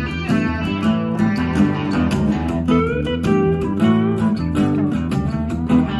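An instrumental guitar passage of a blues-rock song, with guitar notes bending in pitch over a steady drum beat and bass, played back through an NAD 319 amplifier and monitor speakers.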